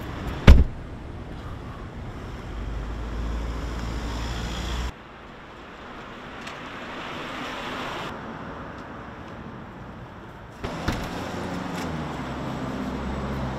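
A car door shuts with one sharp thud about half a second in, followed by steady outdoor street ambience of wind and traffic noise, with a low rumble for a couple of seconds.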